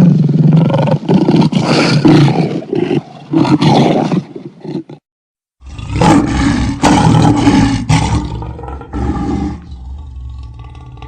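Lion roaring in a run of repeated loud roars. It cuts out abruptly for about half a second, starts a second run of roars, then fades out with a low steady hum lingering.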